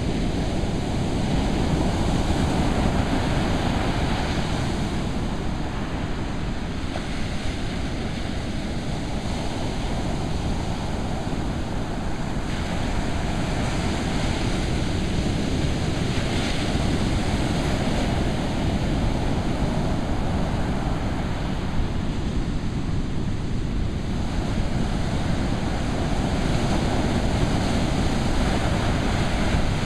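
Ocean surf breaking and washing ashore: a steady, loud roar that swells and eases every several seconds. Wind buffets the microphone.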